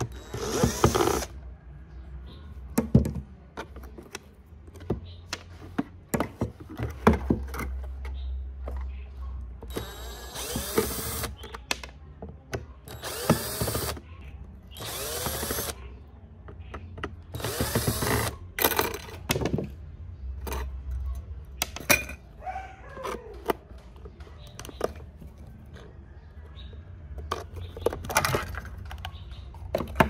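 Cordless drill-driver spinning in short bursts, about six of them, backing rusty screws out of the metal base plate of an old fan's control housing. Between bursts come scattered clicks and clatter of screws and parts being handled.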